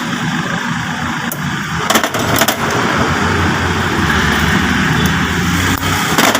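A motor-vehicle engine running steadily, with a few sharp clicks about two seconds in and again near the end.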